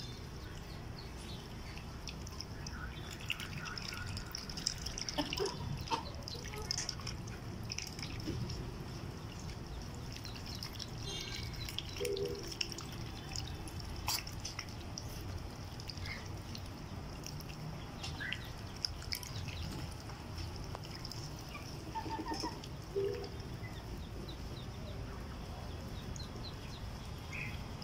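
Muscovy ducklings and chickens drinking and dabbling at a water trough: scattered drips and small splashes, with a few short bird calls now and then.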